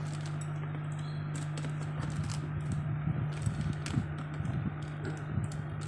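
Scattered light clicks and taps of objects being handled, over a steady low electrical hum.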